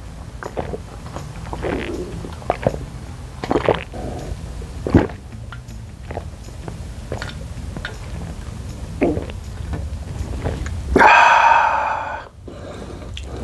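Close-miked chewing and mouth smacks, a string of short wet clicks over a low steady hum. About eleven seconds in comes a loud, second-long voiced 'ahh' as he comes off a drink of beer.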